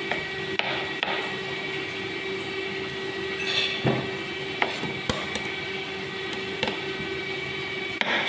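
Scattered, irregular knocks and clicks of kitchen prep work at a counter, utensils and food being handled, over the steady hum of the kitchen's ventilation fan.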